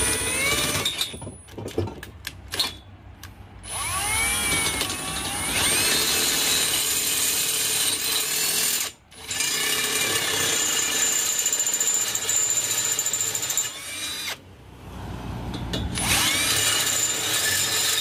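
Electric drill reaming out steel bolt holes that are too tight for the bolts. It runs in several stretches with short stops, its whine rising in pitch each time it spins up.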